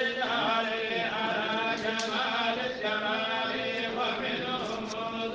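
Chanted Arabic qasida, an Islamic devotional poem, sung in a melodic line over a steady held low note.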